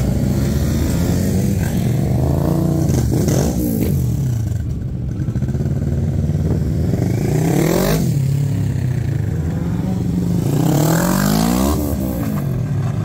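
Several sport motorcycles running close by, their engines revved up and back down again and again over a steady low engine drone; the revs peak three times, about three, eight and eleven seconds in.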